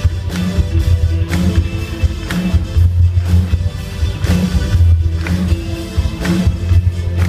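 A live band playing a rock number on stage, with electric guitars and a drum kit over a strong, evenly repeating bass line.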